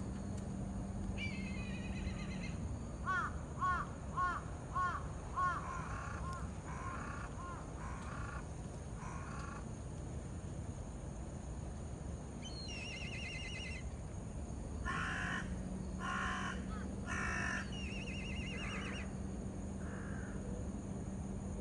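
Birds calling in several bouts: runs of short repeated caw-like calls mixed with higher, wavering trilled calls. A faint steady low hum runs under the first few seconds and returns about two-thirds of the way in.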